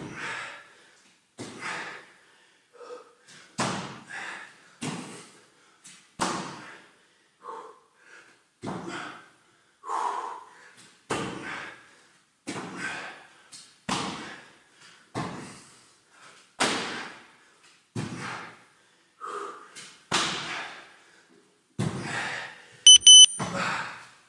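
Bare feet thudding on a rubber gym floor in a steady rhythm, about three strides every two seconds, as spider mountain climbers are done. Near the end a GymBoss interval timer beeps to end the work interval.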